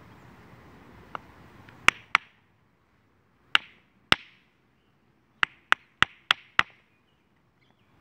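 Rock clacks: one hand-held rock struck against another, giving sharp, ringing clacks. A faint one comes first, then two pairs, then five in quick succession.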